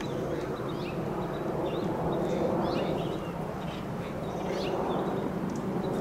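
Acorn woodpeckers calling: short, high notes in quick clusters at irregular intervals, over a steady low rumble of background noise.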